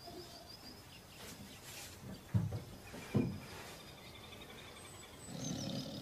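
Nature soundtrack of birds chirping and trilling over a steady hiss, with two short, loud low growls from a big cat about two and three seconds in and a longer, softer growl near the end.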